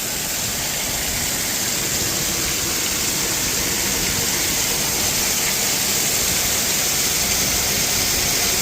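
Waterfall pouring close by: a steady, even roar of falling water.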